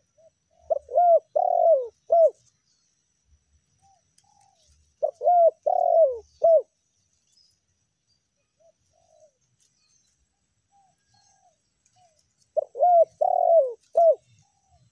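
Spotted dove (tekukur) cooing: three phrases of about four low, bending notes each, several seconds apart, with a few faint soft notes between.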